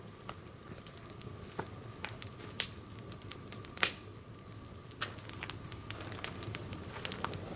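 A Swedish torch, an upright log split lengthwise, burning with a low hiss and occasional sharp crackling pops of burning wood, about seven at irregular intervals.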